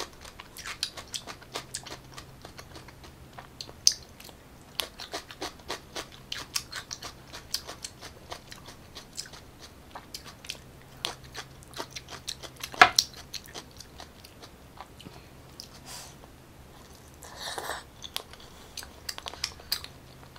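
Close-miked eating sounds of someone chewing pickled ginger: many short, irregular wet mouth clicks and small crunches. The sharpest click is about thirteen seconds in, and there is a brief rushing mouth sound a few seconds before the end.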